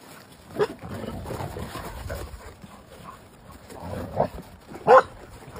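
Dogs playing rough together, giving a few short, sharp calls. The loudest comes near the end.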